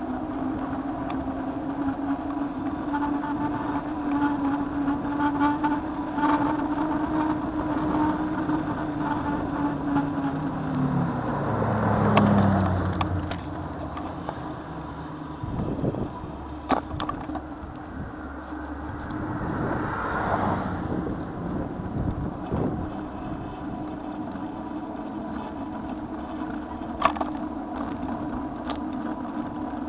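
Bicycle riding on pavement, heard through a bike-mounted camera: a steady hum of tyre and road noise. About twelve seconds in, a louder swell falls in pitch. Another swell comes around twenty seconds, and there are a few sharp knocks from bumps.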